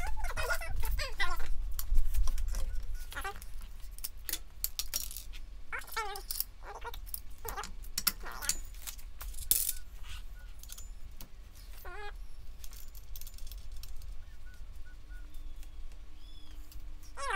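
Small metal suspension hardware clinking and tapping as it is handled, in scattered light clicks.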